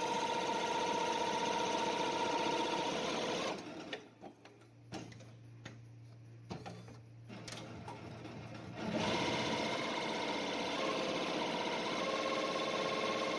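ZSK multi-needle embroidery machine stitching at speed with a steady whir. About three and a half seconds in it stops. For about five seconds only a low hum and a few sharp clicks are heard, the machine's thread change, then it starts stitching again.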